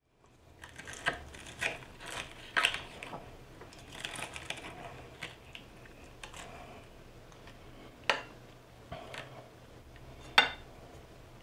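Fork and knife cutting into a breaded chicken fried steak on a ceramic plate: scattered light clicks and scrapes of cutlery against the plate, with two sharper clinks near the end.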